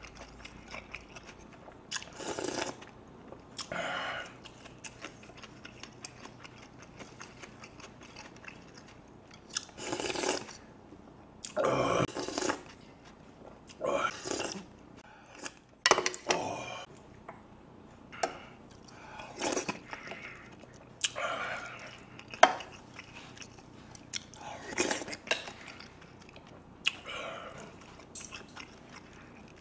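Close-miked eating of beef rib soup with rice: chewing and slurping in short bursts every second or two, with a few sharp clinks of a spoon against a bowl.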